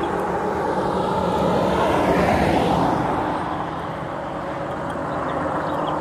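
A road vehicle driving past on the highway, its tyre and engine noise swelling to a peak about two and a half seconds in and then fading. A steady low hum runs underneath.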